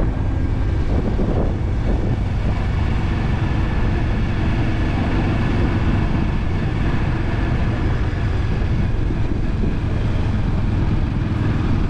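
Motorbike cruising steadily at about 40 km/h, heard from the rider's position: a constant engine and road noise dominated by a heavy low rumble.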